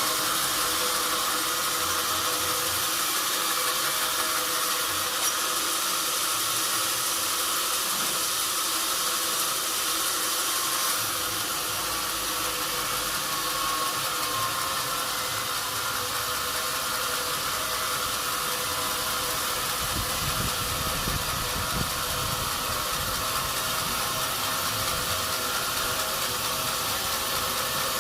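Sawmill machinery running steadily: an even mechanical noise with a few held tones.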